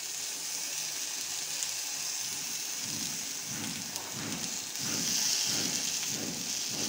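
Fish pieces shallow-frying in oil on a hot black griddle (tawa): a steady sizzling hiss that swells a little about five seconds in.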